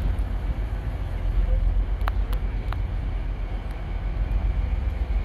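Railway station ambience: a steady low rumble with three sharp clicks a little after two seconds in.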